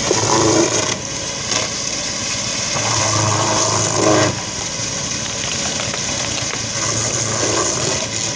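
Wood crusher running steadily while branches are fed in and shredded, with louder grinding stretches about a second in and again from about three to four seconds in.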